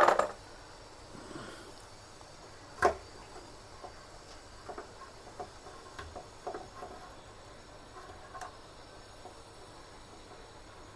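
Faint scattered clicks and light taps of metal and plastic parts being handled as a motorcycle fuel pump is worked loose from its tank, with one sharper knock about three seconds in.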